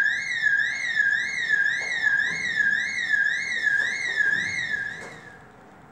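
Electronic warbling alert tone, sweeping up and down about three times a second, played as a stage sound cue. It cuts off about five seconds in.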